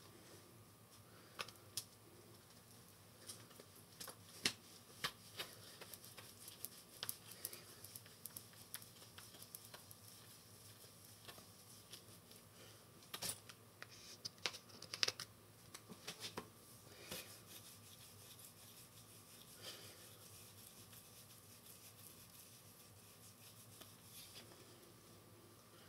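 Faint scattered clicks and taps of small objects being handled, thickest in the first two-thirds and sparser near the end, over quiet room tone.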